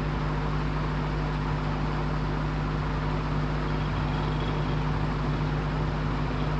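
A steady mechanical hum, a constant low tone over an even rushing noise, with no change.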